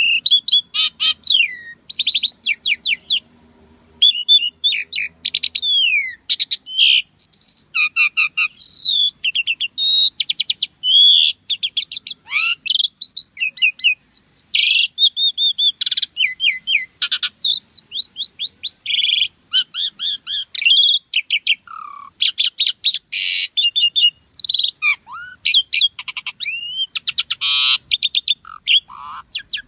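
Asian pied starling (jalak suren) singing non-stop: a rapid, varied stream of whistles, sliding notes and buzzy chattering phrases.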